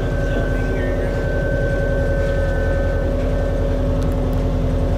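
Montana 5740 tractor's diesel engine running steadily, heard from inside the cab, with a thin high whine that fades out about three seconds in.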